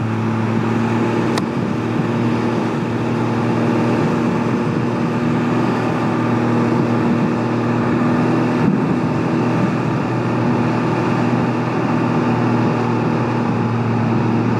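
Can-Am Ryker Rally's three-cylinder engine running at a steady cruise, a constant hum under an even rush of wind and tyre noise on a rain-soaked road.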